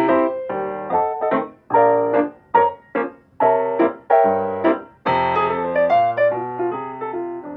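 Background piano music: chords and short phrases, each note ringing and fading, with brief breaks between phrases a few times.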